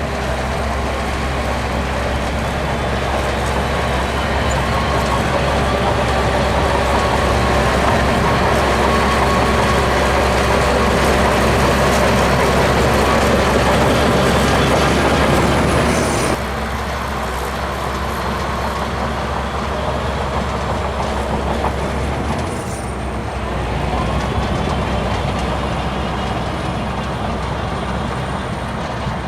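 Shantui DH17C2 crawler bulldozer running steadily, with a whining note over the engine; the sound drops abruptly about sixteen seconds in and carries on at a lower level.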